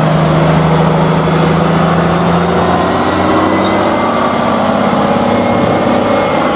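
Heavy truck engine running steadily: a loud, even low drone with no change in speed.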